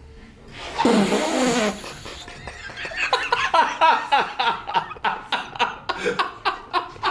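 A loud cry about a second in, then people laughing in quick repeated bursts.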